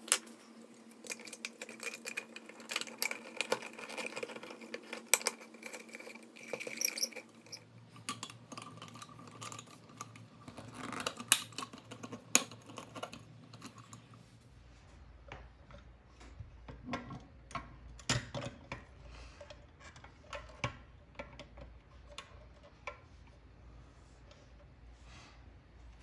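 Small clicks, taps and light knocks from a Tonka toy cement mixer's white plastic drum and chute being fitted by hand onto its red pressed-steel frame and truck body.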